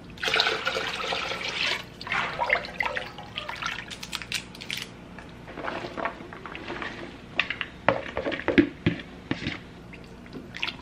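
Water splashing and running in short spells in a kitchen sink, with a few sharp clinks and knocks in the later part.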